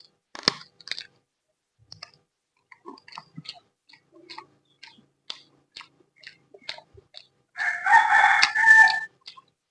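Close-up chewing and crunching of food, with small wet clicks and crackles several times a second. Near the end a louder harsh, pitched cry lasts about a second and a half.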